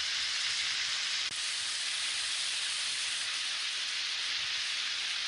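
Chicken pieces frying in hot oil in a pan: a steady sizzle.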